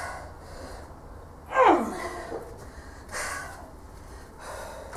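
A woman's forceful, strained breaths as she pumps at bending a Grade 5 steel bolt by hand. A loud grunting exhale falls in pitch about one and a half seconds in, with softer ones about three seconds in and near the end.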